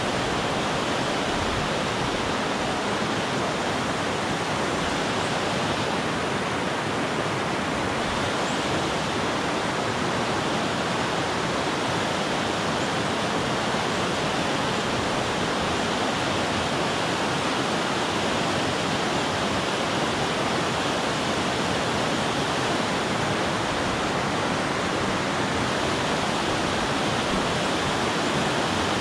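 Whitewater river rapids rushing over rocks: a steady, unbroken rush of water.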